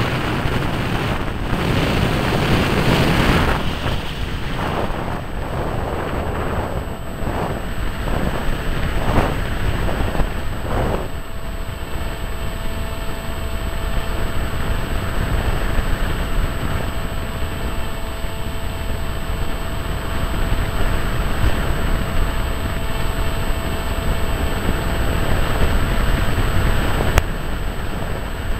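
Wind rushing over the microphone of a HawkSky electric RC plane's onboard camera in flight, mixed with the steady drone of its motor and propeller. The wind comes in waves through the first ten seconds or so as the plane banks, then evens out.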